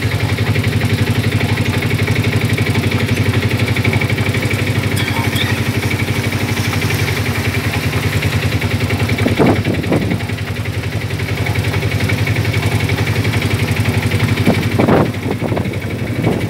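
A vehicle engine idling steadily, with two brief louder sounds about nine and fifteen seconds in.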